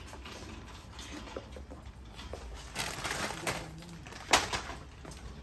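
Quiet shop background with a few short crinkles and rattles as snack packets are handled and a small plastic toy shopping cart is pushed across a tiled floor. The loudest crinkle comes about four and a half seconds in.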